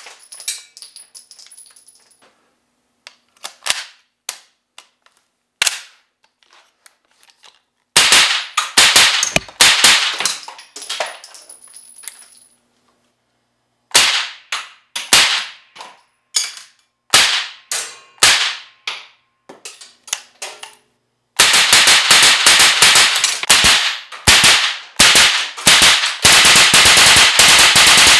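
Suppressed 9mm gunfire from a Zenith Z5P carbine fitted with an AB Suppressor F-4L and run on a Franklin Armory binary trigger. A few light clicks come in a lull near the start. Then there is a string of quick shots, more shots spaced out, often in pairs, and a long rapid run of shots through the last several seconds.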